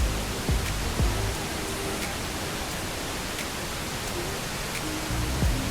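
Steady rushing roar of a waterfall, mixed with background music that has low sustained notes and a thumping beat.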